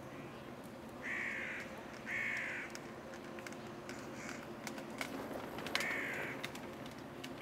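A crow cawing: three loud harsh caws of about half a second each, the first two close together and the third a few seconds later, with a fainter call between them.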